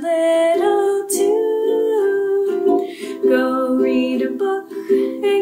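Ukulele strummed steadily, accompanying a woman singing a simple children's song.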